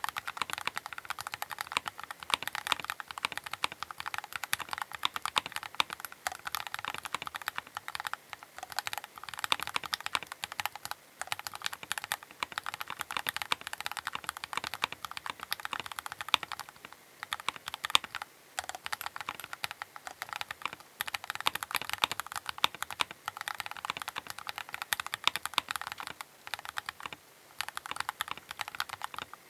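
Continuous fast typing on a Keychron K8 Pro mechanical keyboard: a dense run of key clacks, broken by a couple of brief pauses.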